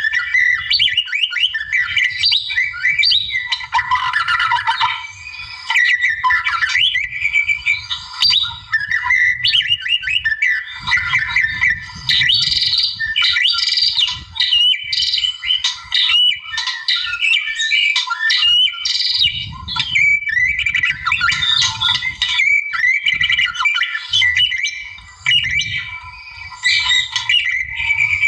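White-rumped shama singing without pause: a fast, varied stream of clear whistles, rapid trills and harsh chattering notes, the loud 'gacor' song used as a master recording for training other songbirds.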